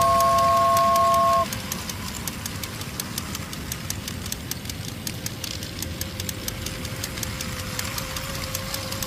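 Toy train built from drink cans, driven by a small DC motor, rolling on concrete: a steady low rumble with a faint hum and regular light clicking. For about the first second and a half a loud, steady, horn-like chord sounds over it, then stops.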